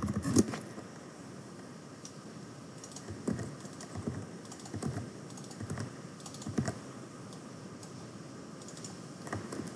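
Computer keyboard keys tapped in short, scattered spells, a few keystrokes at a time with pauses between.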